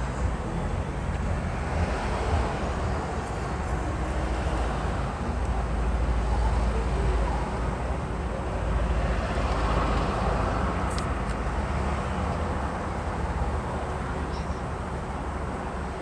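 Car driving slowly in heavy town traffic with all its windows open: steady low engine and road rumble with the noise of the busy street coming in, and a short high-pitched sound about eleven seconds in.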